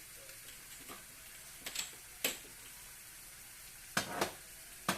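Sauce in a pan sizzling faintly and steadily, with several short sharp clicks and taps of a utensil against the pan while it is stirred.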